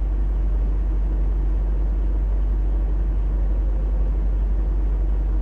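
Semi truck's diesel engine idling: a steady low rumble heard from inside the cab.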